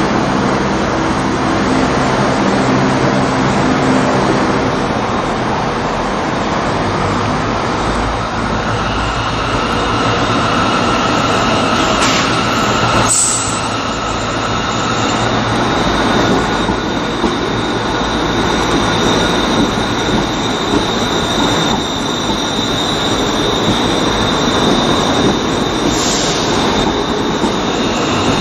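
ScotRail Class 380 electric multiple unit pulling slowly into the platform, with steady motor hum and wheel rumble. High-pitched squealing from wheels or brakes sets in partway through and holds to the end, with a couple of brief sharp clanks.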